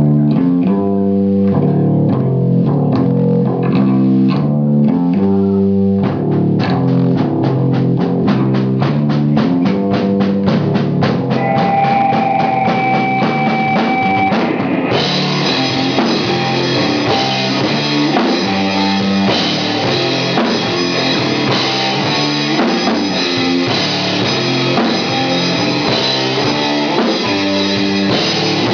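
Stoner rock band playing live and instrumental: electric guitar riffing over bass guitar and drum kit, with a steady fast pulse taking hold about six seconds in and the full band with cymbals coming in about halfway.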